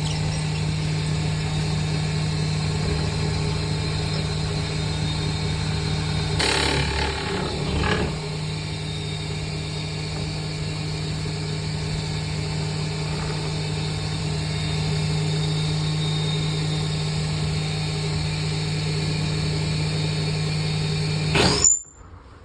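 Wood lathe running with a steady motor hum, with a short burst of noisier cutting or scraping about six and a half seconds in. The hum cuts off suddenly near the end.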